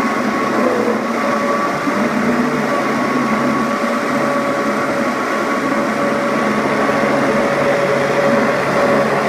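Vitamix blender running steadily, its motor whining at one even pitch over the churning of a thick chickpea hummus in the jar.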